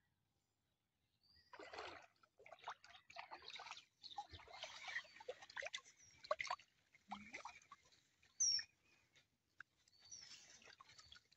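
Water splashing and sloshing in irregular bursts as a bamboo-framed hand net is pushed and lifted through shallow, weedy water. A couple of short high chirps come in the second half.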